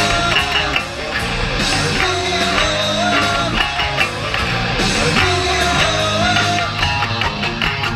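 Live rock band playing loud, with electric guitar over a steady drum beat.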